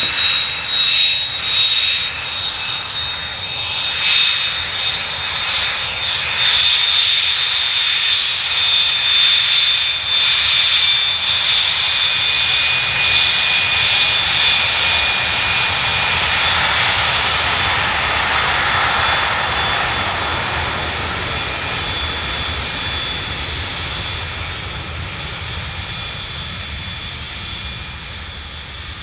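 Jet engine of an F-35B Lightning running loud, with a high-pitched whine over the roar. It fades steadily over the last several seconds.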